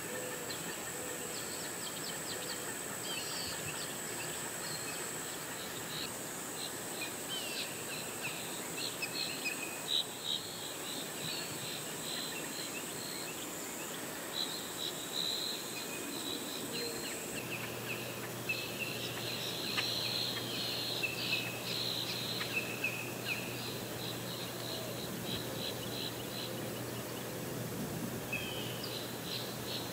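Birds chirping in quick, repeated high notes, over a steady high-pitched insect buzz that stops about halfway through.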